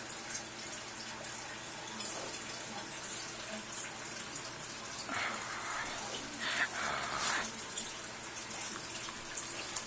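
A German Shepherd puppy and a small chihuahua-mix dog playing close to a cell phone's microphone: soft scuffling and rustling that swells twice, about five and seven seconds in, over a steady hiss.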